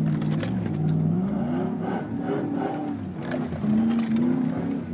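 GMC Sierra's 5.3-litre V8 through a Flowmaster exhaust, heard from inside the cab, revving hard, its pitch falling and rising again several times as the truck spins in loose sand.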